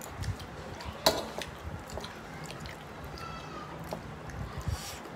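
Close-up eating sounds of someone eating mutton biryani: wet chewing and lip smacks, with a sharp click about a second in.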